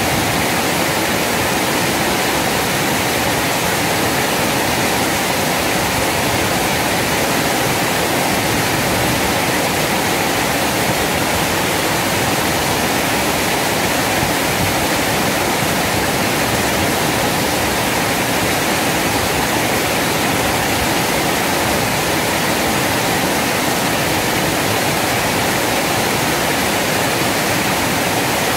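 Small river waterfall (weir) pouring into a fast, muddy current, making a steady, loud rush of water.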